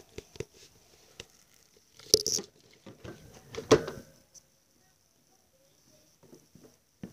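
Handling noises around a wire hamster cage: a few light clicks and knocks, a brief rustling scuffle about two seconds in and another near four seconds, then quiet with a few faint ticks.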